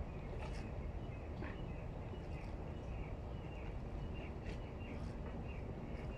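Small birds chirping in short, repeated calls over a steady low background rumble.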